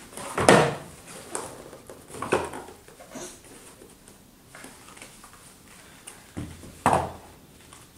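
Large cardboard building blocks handled and set down by a toddler: a few short knocks and bumps, the loudest about half a second in and another near seven seconds.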